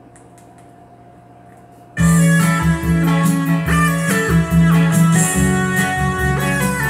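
Quiet gap between tracks on a vinyl record, with a low hum and a few faint clicks. About two seconds in, a song starts at full level, led by electric guitar over bass guitar.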